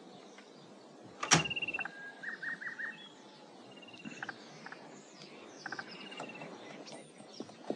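Birds calling: a run of quick chirps, short held whistle notes and brief falling calls. One sharp crack about a second in is the loudest sound.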